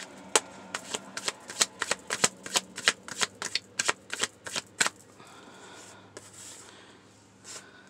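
Tarot deck being shuffled by hand: a quick run of card flicks and slaps, about four to five a second, stopping about five seconds in, then softer rustling of cards.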